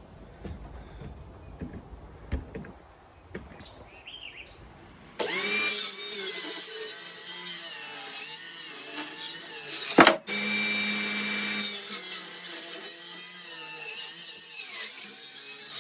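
A few faint knocks, then about five seconds in a power saw starts cutting wood abruptly. The motor whine stays steady under load, with a brief break about ten seconds in.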